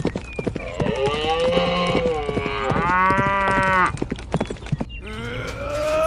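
Two long, drawn-out calls, each a second or more, over a run of sharp clicks.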